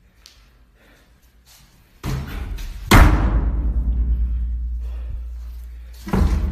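A heavy thud about two seconds in, then a louder boom a second later that dies away in a long low rumble, and another heavy thud near the end.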